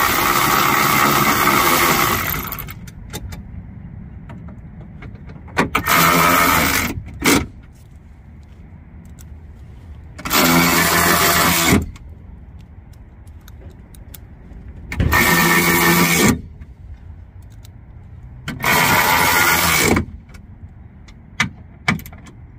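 Cordless electric ratchet running in five bursts of one to three seconds each, spinning the window regulator's mounting nuts down inside the car door. Light clicks of the socket and tool handling come between the runs.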